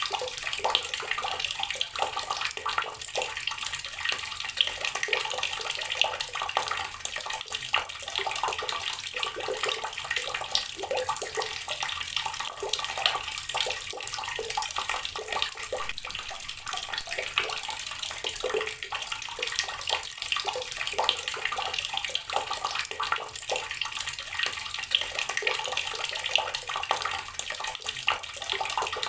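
Water running from a tap and splashing onto rocks: a steady stream with constant fine splashing and dripping.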